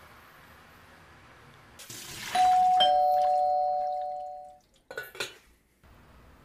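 Two-tone doorbell chime: a higher ding, then a lower dong, the two notes ringing together and fading out over about two seconds. A few short clicks follow soon after.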